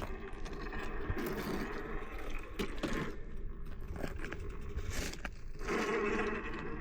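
RC rock crawler's electric motor and geared drivetrain whining as the truck crawls over rock, with a few short clicks. The whine gets louder for a moment near the end.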